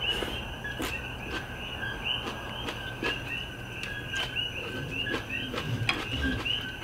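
Insects chirping steadily in the background, a rapid run of several short chirps a second, with a low steady hum and a few light clicks of chopsticks.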